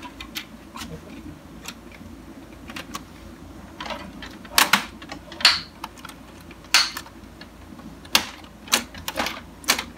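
Irregular clicks and clacks of plastic and metal parts in an opened Canon MF643 colour laser printer being handled by hand during disassembly, with a few louder knocks in the second half.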